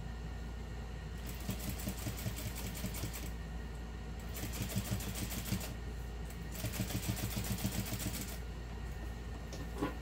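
Juki industrial sewing machine stitching in three short runs of about two seconds each, with brief stops between: topstitching through layers of cotton fabric.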